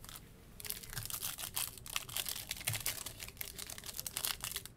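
Foil wrapper of a Topps Chrome baseball card pack crinkling and crackling as it is handled and opened in the hands, a dense run of small crackles that starts about half a second in.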